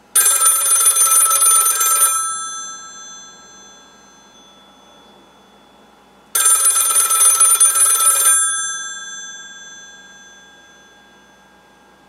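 Western Electric model 500 rotary telephone's bells ringing for an incoming call: two rings of about two seconds each, about four seconds apart, in the standard North American ring pattern. After each ring the bell tones fade slowly.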